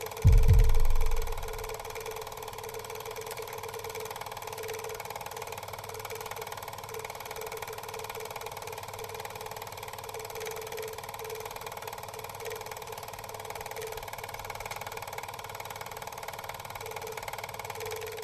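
Closing soundtrack: a deep boom about half a second in, then a steady droning tone with a slight pulse that holds on.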